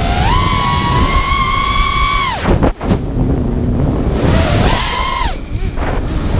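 FPV quadcopter's brushless motors whining under throttle. The pitch rises and holds high for about two seconds, then drops away sharply as the throttle is cut, leaving a low hum. A second short rise and cut comes near the end. Wind rushes over the onboard camera's microphone underneath.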